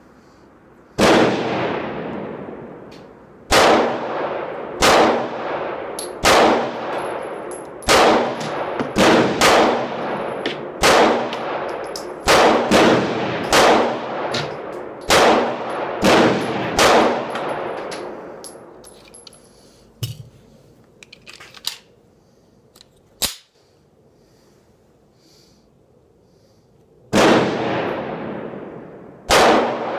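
SCCY CPX-2 9mm pistol firing a long string of shots in quick, uneven succession, each crack trailing off in a ringing echo under the range's shed roof. After about fifteen shots the firing stops for several seconds with a few small metallic clicks, then resumes near the end.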